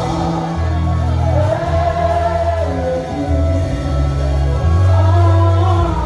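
Live gospel worship song: a woman sings lead through a microphone and PA, over long held bass notes from the band.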